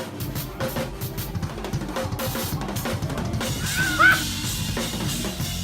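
Drum kit played busily with kick, snare and ringing cymbals over a band's sustained low notes. A brief sliding high-pitched sound, the loudest moment, comes about four seconds in.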